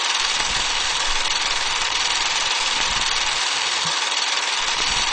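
Film projector running, a steady even mechanical noise with no pitch to it.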